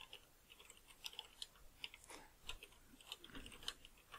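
Faint computer keyboard typing: irregular, light key clicks, several a second.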